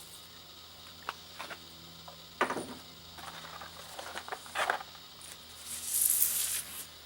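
Packaging being handled: scattered light clicks and knocks, and a longer rustle about six seconds in, as LED whip lights are taken out of their box.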